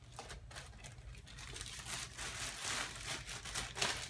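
Thin clear plastic packaging bag crinkling in irregular bursts as it is handled, louder in the second half.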